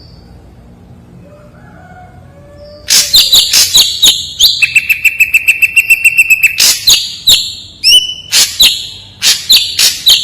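Ashy drongo singing: after a quiet opening, about three seconds in it breaks into a rapid string of sharp, piercing high notes, holds one steady whistle for about two seconds, then gives spaced sharp notes.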